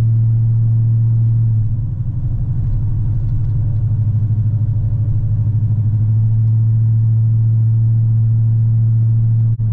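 Steady low engine and road drone of a Chevrolet Suburban being driven, heard from inside.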